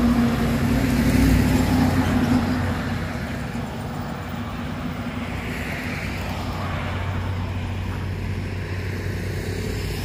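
A heavy tractor-trailer truck passes close by, its diesel engine hum loudest in the first two to three seconds and then fading. Steady road traffic noise follows, with a car's tyre noise rising and falling about six seconds in.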